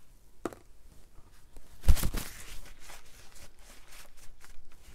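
Handling noises at a painting table: a loud thump with a brief rustle about two seconds in, with a few light clicks and taps before and after it.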